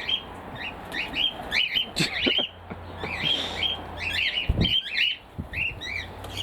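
A flock of cockatiels calling over and over in short, arched, overlapping chirps, with a low thump a little past halfway.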